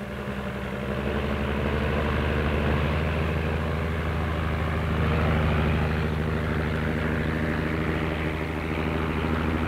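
Twin radial piston engines of an Airspeed Ambassador 'Elizabethan' airliner running up as it rolls for takeoff. A steady propeller drone swells over the first second, then holds.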